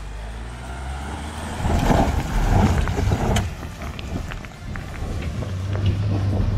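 Volkswagen Amarok's 3.0 V6 diesel engine revving up as it climbs a steep slope of loose rock and gravel, rising in pitch over the first second or so. From about two seconds in it grows louder, with the tyres crunching over stones and many sharp clicks of gravel being thrown.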